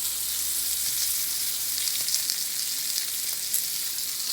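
Prosciutto-wrapped asparagus sizzling in a hot frying pan, a steady hiss with small pops and crackles as the ham fat fries.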